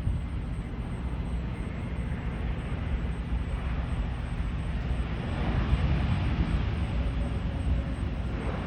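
Jet engine noise of an Airbus A321neo airliner landing, a steady rushing sound over a low rumble that swells to its loudest about six seconds in.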